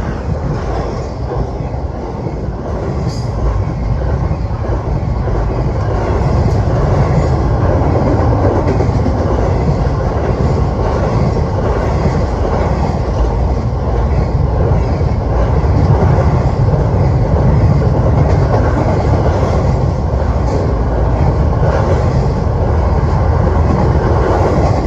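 Freight train rolling past close by: a continuous heavy rumble of wheels on rail with rattling cars, swelling slightly in the first few seconds and then holding steady.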